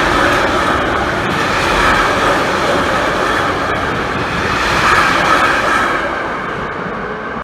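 A train passing close by: steady, loud wheel-and-rail rolling noise that swells slightly twice, with a few faint clicks.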